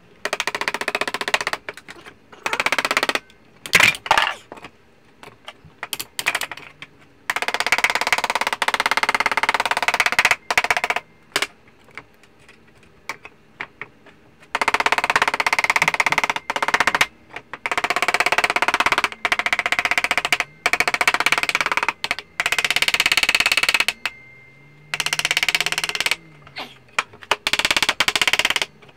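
Electric drill boring through a clamped steel panel and its wooden former, running in repeated bursts of one to three seconds with short breaks between.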